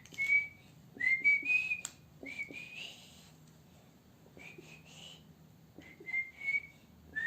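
A person whistling a series of short, slightly rising notes in about five bursts, calling a pet to come back.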